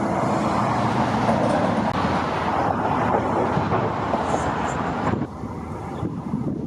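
Road traffic noise, a steady rush of passing vehicles that drops off abruptly about five seconds in.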